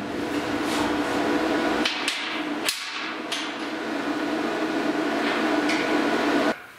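Steady mechanical hum of a running machine with a few sharp metal knocks as steel parts are handled. The hum cuts off abruptly near the end.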